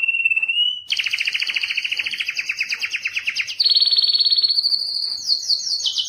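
Canary singing a long song of rolling trills: a steady trill, a brief break about a second in, then a fast pulsing trill for a few seconds, switching to a higher, faster trill near the middle and higher pulsed notes near the end. A courtship song of the kind sung to attract females.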